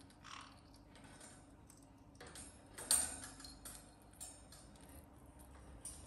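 Scattered small clicks and scrapes from a caique parrot clambering on a hanging rope perch, with one louder, sharper click about three seconds in.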